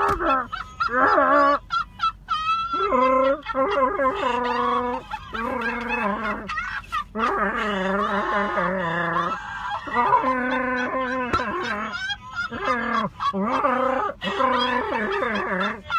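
Chewbacca-style Wookiee roars: a string of long cries, each about one to two seconds, with wavering, gliding pitch and short breaks between them.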